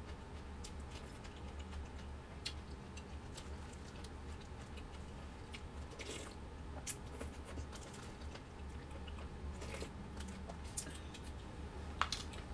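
A person eating close to the microphone: chewing and mouth smacks with scattered short clicks from a spoon and plastic food containers, over a steady low hum.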